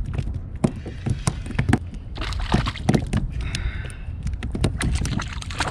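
Spinning reel being cranked on a kayak fishing rod, with many small clicks and knocks and stretches of hiss. Water sloshes against the kayak hull.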